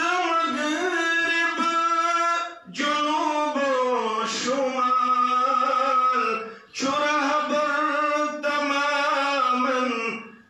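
A man's voice chanting melodically in three long, held phrases, each a few seconds long, with short breaths between them.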